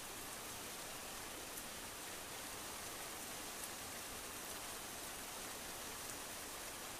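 Steady, even hiss with two faint ticks, one about one and a half seconds in and one about three and a half seconds in.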